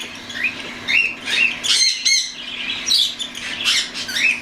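Young cockatiels, several at once, calling in quick, overlapping rising chirps and squawks, two or three calls a second.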